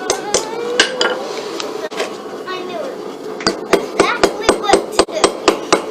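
Blacksmith's hammer striking hot steel on an anvil: a few spaced blows, then from about three and a half seconds in a steady run of about four blows a second, rounding out the stock for a hook.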